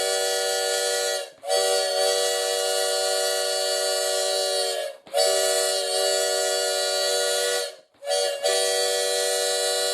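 Homemade plastic-straw five-chime air horn, voiced as a steam whistle with water sprayed into its bells, sounding a steady chord in a series of blasts. One blast ends about a second in, two more last about three seconds each, a brief toot follows near the end, and another long blast starts right after it.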